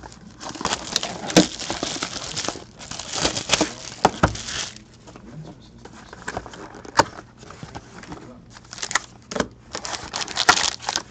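Crinkling and rustling of a Panini Rookie Anthology hockey card box being unwrapped and opened by hand, with light scrapes and taps of cardboard as the lid comes open.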